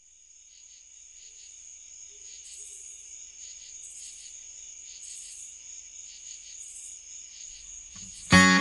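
Crickets chirping in a steady high trill, fading in, with a higher pulsing chirp about once a second. Near the end an acoustic guitar strums in loudly.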